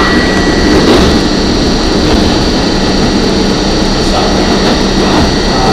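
R44 subway car running at speed, heard from inside the car: a loud, steady rumble of wheels on rail with a few constant high tones over it.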